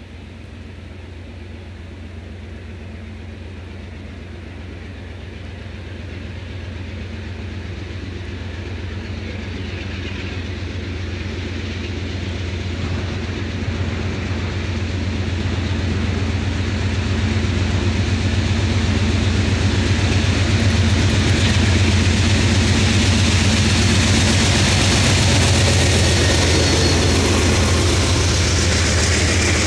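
Amtrak diesel-hauled passenger train approaching and passing. A steady low locomotive drone grows louder over the first eighteen seconds or so. The rolling wheel and rail noise of the stainless-steel passenger cars then rises and holds as they go by, with a few sharp clicks about two-thirds of the way in.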